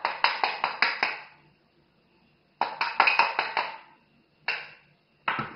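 A metal spoon tapping a stainless-steel grinder container to knock ground powder loose into a jar. There are two quick runs of about six metallic taps each, then two single taps near the end.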